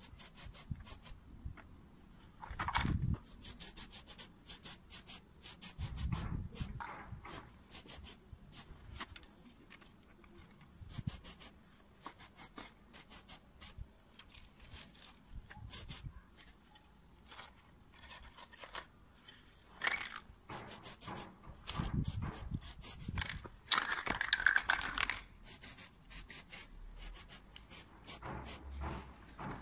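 Aerosol spray-paint can hissing onto a clay pot, with one longer spray burst late on, among rubbing, scraping and clicking handling noises from the can, hands and paper.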